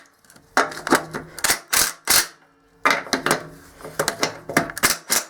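Ratchet wrench clicking in two quick runs with a short pause between, as the snowblower's skid shoe bolts are snugged up.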